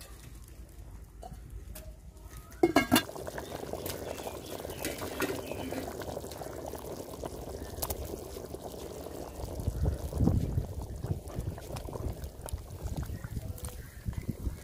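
A pot of meat curry with thin broth bubbling steadily as it simmers. There is a brief sharp sound about three seconds in.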